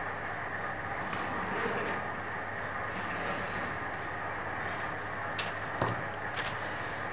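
Steady background hiss with a low hum. About five and a half to six and a half seconds in, a few light taps and rustles as a sheet of pattern paper is lifted and moved on the table.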